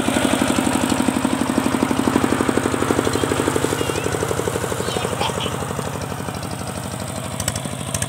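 Single-cylinder diesel engine of a two-wheel walking tractor running steadily under load as it pulls a loaded trailer, with an even fast chugging beat that grows a little quieter toward the end.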